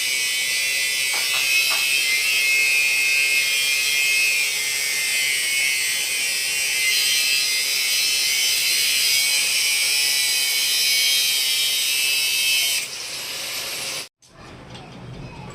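A power tool running steadily with a high hiss and whine, stopping about thirteen seconds in; after a brief cut, a quieter, different background sound follows.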